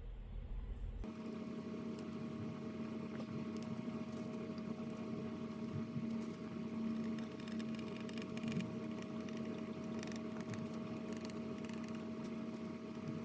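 A small electric motor running steadily at one speed, starting abruptly about a second in.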